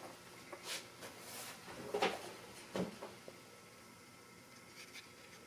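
Faint handling noises: a few soft scrapes and a couple of light knocks, over quiet room hiss.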